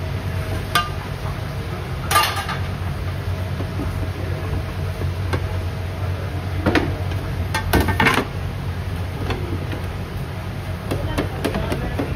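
Metal pizza pans knocking and clattering as they are lifted, separated and set down on a steel counter: a handful of sharp clanks, with a cluster about two seconds in and another about eight seconds in, over a steady low hum.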